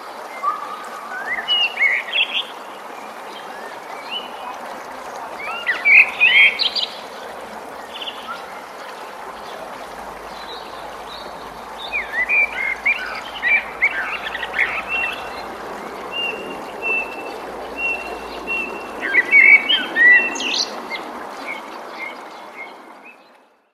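Forest songbirds chirping and singing in short clusters over a steady rush of running water, the whole ambience fading out near the end.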